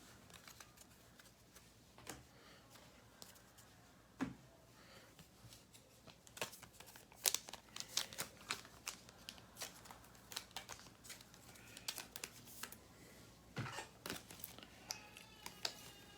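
Trading cards being handled and sorted on a table: faint, scattered light ticks and crinkles of card stock and plastic packaging.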